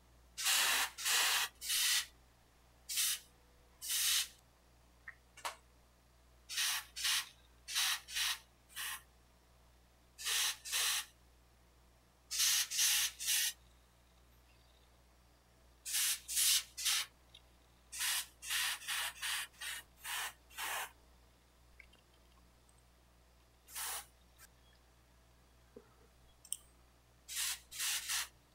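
Airbrush spraying paint in many short hissing bursts, each a fraction of a second long and mostly in quick groups of two to four, with pauses between.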